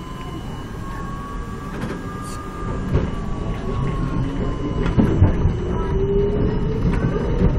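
R42 subway car running on the rails, with a steady low rumble from the wheels and a few sharp knocks from the track. A motor whine rises steadily in pitch through the second half as the train picks up speed.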